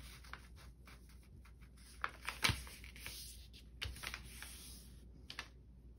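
Paper being folded in half and creased by hand: faint rustling with a few short, sharp scrapes and taps as the fingers press and run along the fold.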